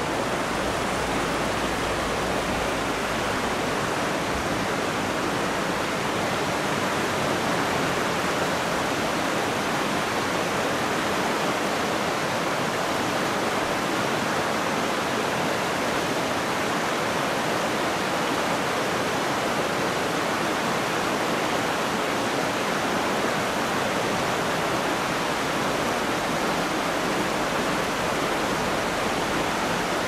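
Shallow river babbling over rock ledges and stones: a steady, even rush of water.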